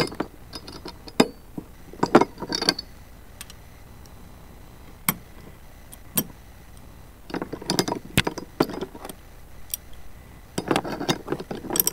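Metal hand tools and the metal sliding-door roller bracket clinking and rattling as they are handled, in irregular bursts of sharp clicks with pauses between.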